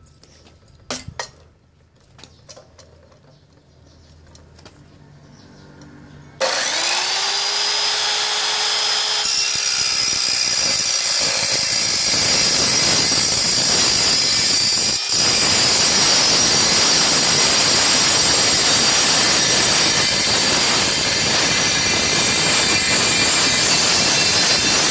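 Evolution EVOSAW180HD 7-1/4-inch steel-cutting circular saw switched on about six seconds in, its motor rising quickly to speed, then cutting through a rusty steel pipe about 3.5 inches across: a loud, steady cutting noise with a high ringing tone. A few light clicks come before it starts.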